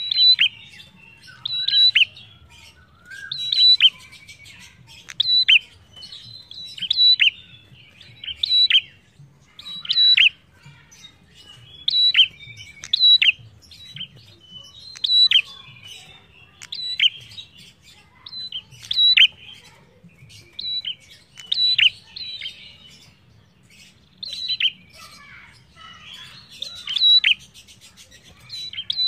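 Ashy tailorbird singing steadily: a long run of sharp, high call notes, each dropping quickly in pitch, repeated about once a second.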